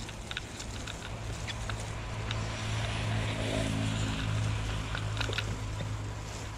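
Bicycle ridden over a muddy, leaf-covered dirt track: tyres rolling through mud and fallen leaves, with scattered ticks and rattles from the bike. A steady low hum runs underneath and swells in the middle.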